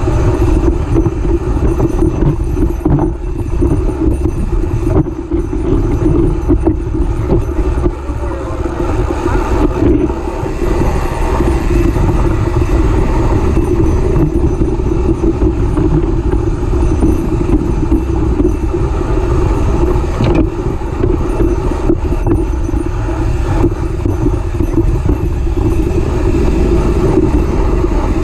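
Mountain bike ridden over a rocky dirt trail, picked up by a camera mounted on the bike under the saddle: a continuous buzzing drone with the rough rumble and rattle of the tyre and frame over the ground.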